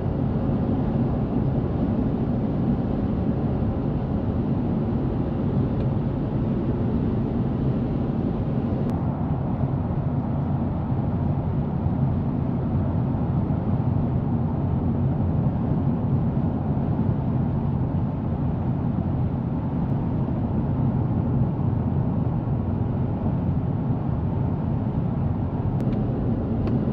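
Steady road and engine noise inside a car cruising on a highway: an even low rumble with tyre hiss.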